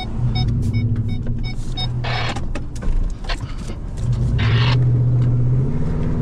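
Pickup truck engine running as the truck drives slowly on a dirt road, heard from inside the cab, with a beeping warning chime about two and a half times a second that stops about two seconds in. The engine note rises in the last couple of seconds as the truck speeds up.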